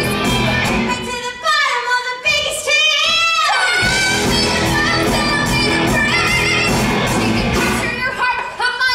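Song from a live stage musical: singing with held, wavering notes over band accompaniment, recorded from the audience in a theatre.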